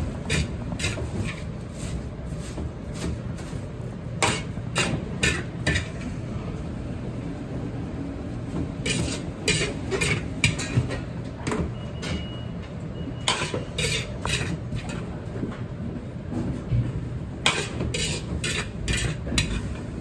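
Metal wok ladle knocking and scraping against a large iron wok in repeated bursts of quick clanks as fried rice is scooped out and piled onto a platter, over a steady low rumble.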